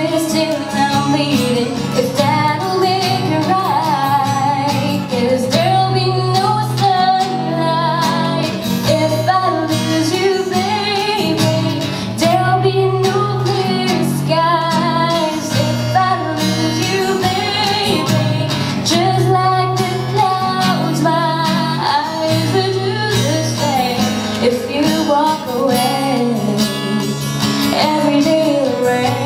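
A woman singing a slow pop song into a microphone, accompanied by an acoustic guitar.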